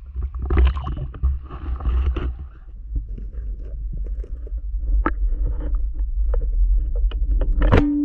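Water sloshing and splashing against the camera at the surface, then the muffled rumble of an underwater camera with a few sharp clicks. The loudest click comes near the end.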